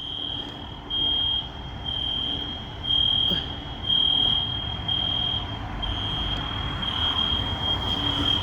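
Building fire alarm sounding, a high electronic tone pulsing about once a second, over low background rumble.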